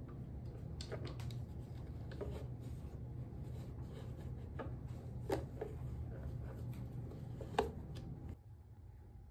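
Light knocks, scrapes and scrabbling of a kitten moving about inside a bathroom cabinet drawer, the two loudest knocks about five and seven and a half seconds in, over a steady low hum that cuts off suddenly about eight seconds in.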